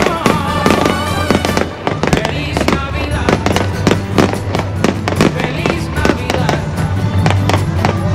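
Fireworks going off in a rapid string of bangs and crackles, with music playing underneath.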